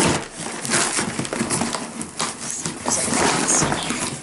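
Corrugated cardboard shipping box being torn open by hand: irregular ripping and scraping of cardboard.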